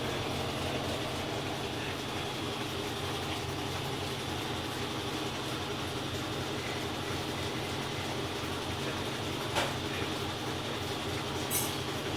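GE EcoPerformance 15 kg top-loading washing machine running with a steady mechanical hum and rumble. Two short sharp clicks come about two seconds apart near the end.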